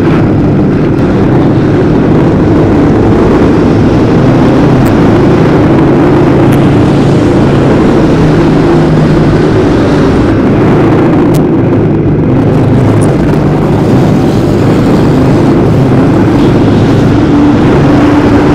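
Dirt-track race car's engine running hard at racing speed, heard loud from on board the car, with a fairly steady engine note that shifts slightly with throttle.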